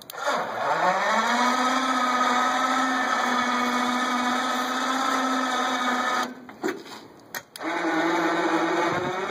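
Electric motor of a battery-powered trailer dolly whining as it drives the hitched trailer: it spins up with a rising pitch, runs steadily for about six seconds, stops, gives two short blips, then runs again at a higher pitch near the end.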